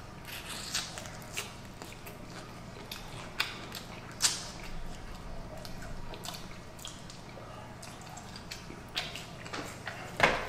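A person biting and chewing fried chicken close to the microphone, with irregular sharp clicks and crunches, the strongest about four seconds in and again near the end.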